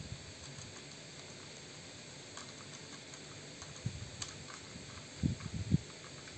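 Light plastic clicks and soft knocks from a ring fill light and its black plastic mount being handled and fitted together, with a short run of low bumps about five seconds in.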